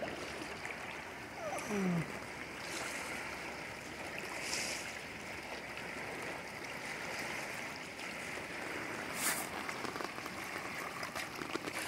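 Steady rush of moving water at the shoreline, with brief louder swishes about four and nine seconds in.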